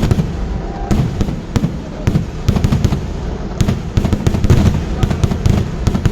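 Kerala festival fireworks (vedikettu): many sharp bangs in quick, irregular succession over a continuous low rumble of further blasts.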